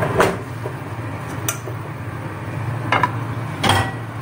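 Metal pots clinking and knocking, about four separate hits, as diced potatoes and carrots are tipped from an enamel pot into a stainless steel pot and the pots are set down against each other.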